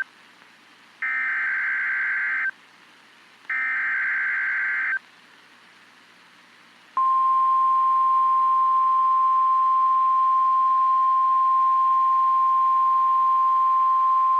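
NOAA Weather Radio emergency alert signal. Two harsh, buzzy SAME digital header bursts of about a second and a half each, then about seven seconds in the steady 1050 Hz warning alarm tone begins and holds. The tone marks a warning broadcast and sets off weather-radio receivers.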